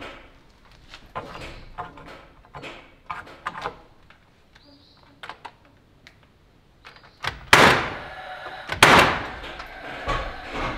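Cordless impact driver driving screws into the ceiling framing lumber: two short, loud bursts in the second half, after several seconds of light knocks and clicks of handling the wood and hardware.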